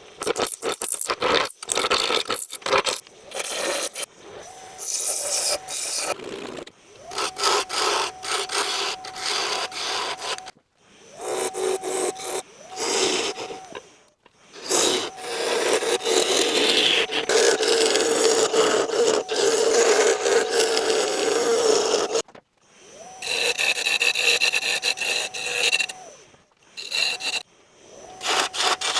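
A turning tool cutting and scraping a spinning wooden hollow form on a lathe. It runs in long noisy passes broken by short pauses, with a faint steady tone underneath.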